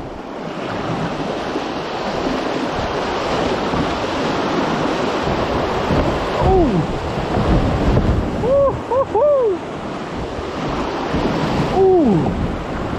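Rushing whitewater of a small river rapid as a kayak is paddled down through it. A few short pitched sounds that fall in pitch cut through it: one about halfway, three in quick succession a couple of seconds later, and one near the end.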